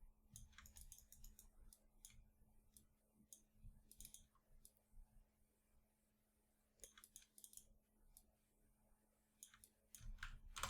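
Faint, irregular clicks of a computer mouse and keyboard, with a quiet gap about six seconds in, over a faint steady hum.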